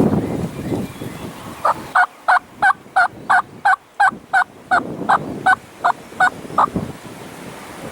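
Turkey yelping: a long run of about fourteen evenly spaced yelps, roughly three a second, the hen-yelp cadence. Wind rumbles on the microphone before and after the calls.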